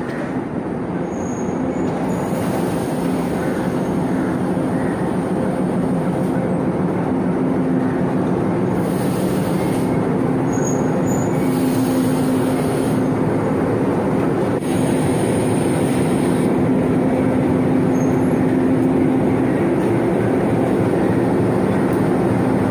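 Sri Lanka Railways Class M4 diesel locomotive's engine running with a steady droning hum as the locomotive moves slowly past, growing gradually louder as it draws near. Faint brief wheel squeaks are heard now and then.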